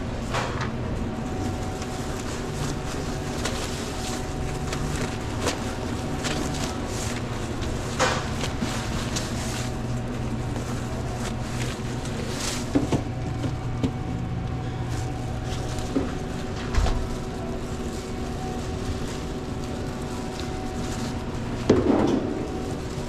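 Steady hum of sandwich-shop equipment with a few scattered knocks and clicks from handling things at the counter, the loudest knock near the end.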